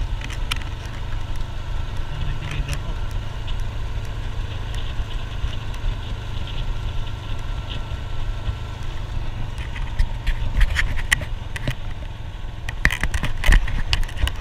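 Motorcycle running steadily while being ridden, with a heavy low rumble of wind on the microphone. Several sharp knocks and rattles come in the last few seconds.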